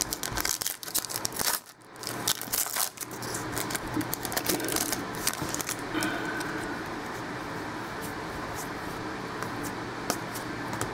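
Trading cards being handled: a card pack's wrapper crinkling and cards rustling and clicking against each other, with a busy run of sharp clicks over the first few seconds that thins out to a steady hiss.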